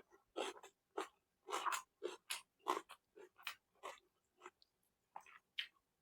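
Close-up chewing and wet lip-smacking while eating, in short irregular bursts about two or three a second.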